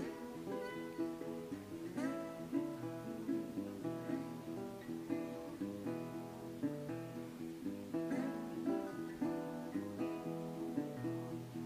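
Background music: acoustic guitar playing a steady run of plucked and strummed notes.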